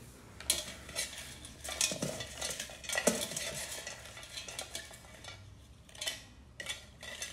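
Hands rummaging and stirring inside galvanised metal buckets during a lottery draw, an irregular run of scrapes, rattles and clinks against the metal, busiest in the first few seconds.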